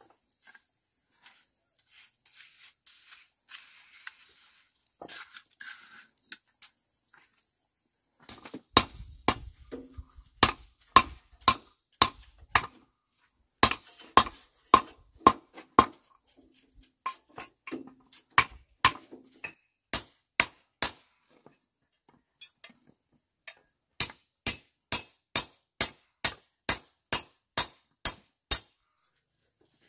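Hammer striking a steel reinforcing bar laid on a wooden block, in sharp metallic blows. They come irregularly at first, with pauses, then in an even run of about three blows a second near the end. Before the hammering there are a few seconds of faint trowel taps on brick.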